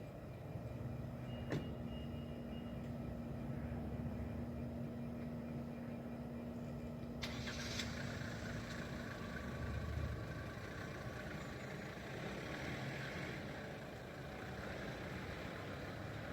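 A motor vehicle engine running with a steady low rumble and a constant hum that stops about ten seconds in; a single sharp click about a second and a half in.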